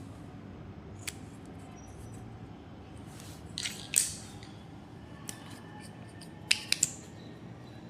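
Slime and makeup being handled, giving scattered small clicks and crackles, with a few louder sharp snaps about four seconds in and three more near the end.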